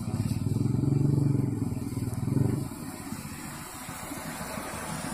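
A motor vehicle engine running close by, loud for the first two and a half seconds and then fading away, leaving a steady hiss.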